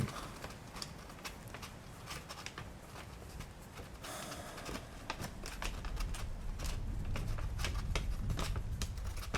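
Thunderstorm ambience: scattered light taps and clicks, with a low rumble building from about halfway through.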